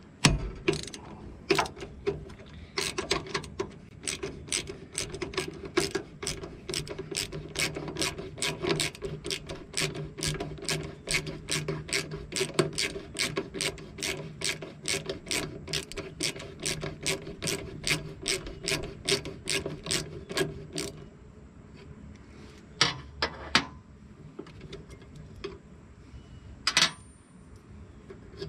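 Hand socket ratchet clicking steadily as it is worked to loosen a bolt, about two to three clicks a second. The clicking stops about 21 seconds in, followed by a few single clicks.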